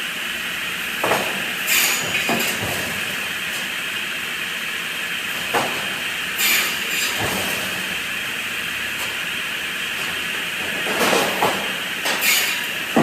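Mill machinery running steadily, with scattered knocks and three short bursts of compressed-air hiss.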